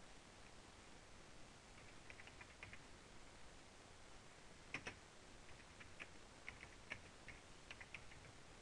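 Faint keystrokes on a computer keyboard: scattered, uneven clicks starting about two seconds in, with a louder pair of strokes near the middle.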